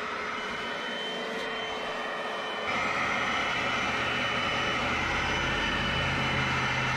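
Bissell Little Green portable carpet and upholstery cleaner running steadily, with a high motor whine over a rushing suction noise, its hose tool working a fabric car seat. A little under three seconds in it gets louder and a deeper hum comes in.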